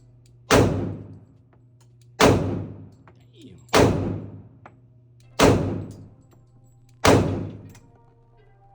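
Five slow, evenly paced pistol shots from a Glock 27 in .40 S&W, one about every second and a half, each a sharp crack with a long echoing tail from the indoor range.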